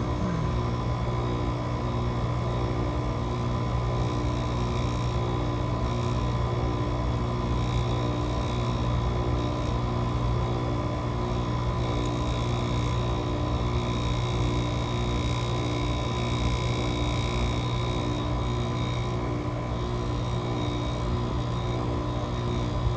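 GE AWS05LSK1 5050 BTU window air conditioner running steadily in a cold start at 15°F: its Samsung rotary compressor and fan give a low, steady hum with a slow, regular pulsing in it, while the compressor builds head pressure.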